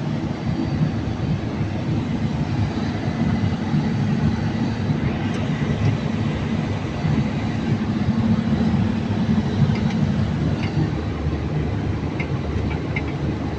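Steady low rumble of running machinery, even in level throughout.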